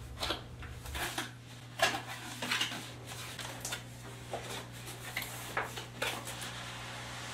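Cardboard packaging being handled: an inner box slid out of its outer sleeve and its lid opened, a series of short scrapes, rubs and light knocks, the loudest about two seconds in.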